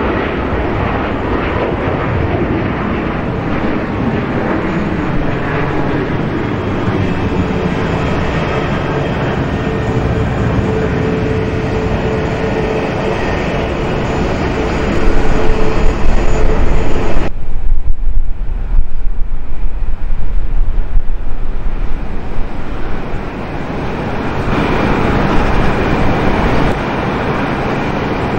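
Airport apron background: a steady rumble of aircraft engines with a faint whine, swelling into louder, uneven low rumbling for several seconds past the middle before settling again.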